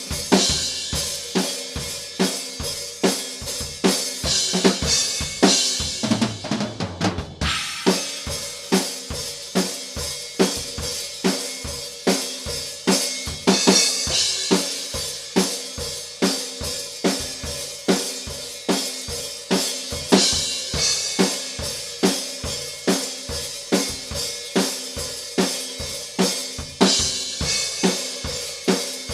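Solo acoustic drum kit playing a driving metal groove: bass drum, snare, hi-hat and crash cymbals in a steady, fast rhythm, with a short fill around six seconds in.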